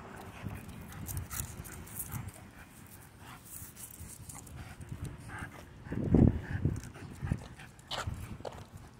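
Micro bully dog panting on a leashed walk, with scattered light clicks and a louder low puff about six seconds in.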